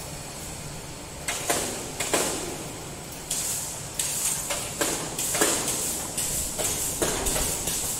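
Repeated scraping and sliding noises, a dozen or so irregular bursts that each fade quickly, as the incline conveyor's stainless-steel frame is shifted about and handled.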